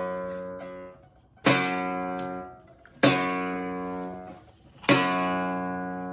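Acoustic guitar strumming single chords, each left to ring and fade before the next; three strums about a second and a half apart.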